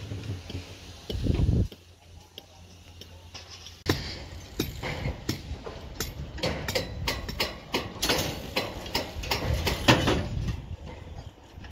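Sharp metallic clicks and taps of steel on steel rebar, irregular and several a second from about four seconds in, as workers tie and work a rebar mat with hand tools. A low rumble near the start stops suddenly.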